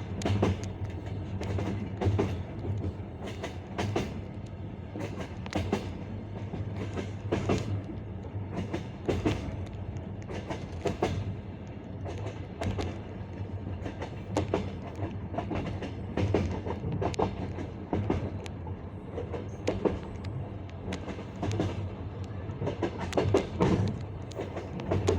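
Passenger-car wheels clattering over the rail joints of jointed track: the classic clickety-clack, groups of knocks about every two seconds over the steady rolling rumble of the train.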